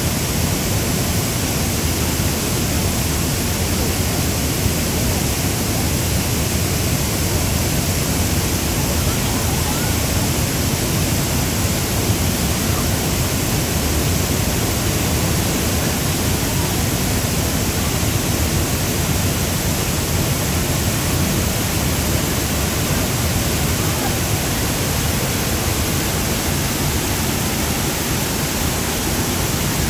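Waterfall in full rainy-season flow, water pouring over large rocks: a steady, unbroken rush.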